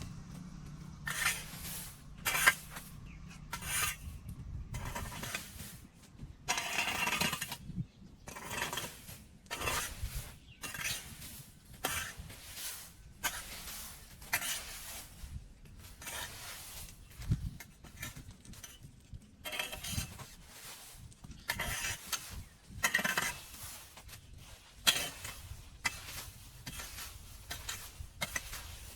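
A metal hand tool scraping and clinking again and again in short irregular strokes, as when debris is raked or dug out of a drain.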